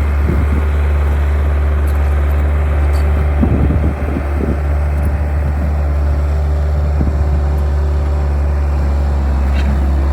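Skid steer engine running steadily, a loud low drone.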